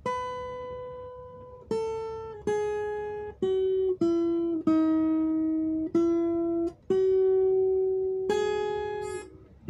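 Acoustic guitar with a capo, single notes picked one at a time as a slow melody line, about ten notes, each left to ring before the next.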